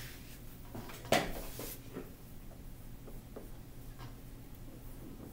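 A whiteboard eraser wiping across the board, with one sharp knock about a second in, then faint taps and strokes of a dry-erase marker writing on the whiteboard, over a steady low hum.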